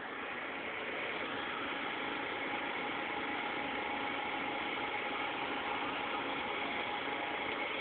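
Steady mechanical running from a 1998 Ford Escort ZX2's engine bay (2.0 L four-cylinder), a little louder from about a second in, with a thin whine over it.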